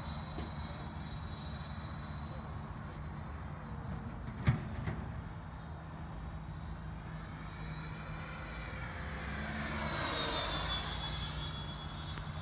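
Twin 80 mm electric ducted fans of a Freewing F-14 Tomcat RC jet whining in flight. About ten seconds in, the jet passes closer: the sound grows louder and the whine falls in pitch. A single sharp knock comes about four and a half seconds in.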